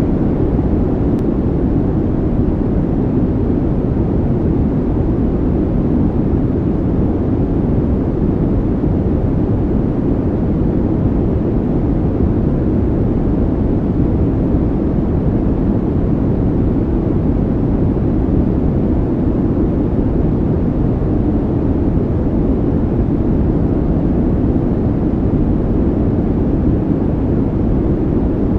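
Steady, unbroken low rumbling noise, an added calming background sound track like brown noise or a distant engine drone, with no rhythm or change in level.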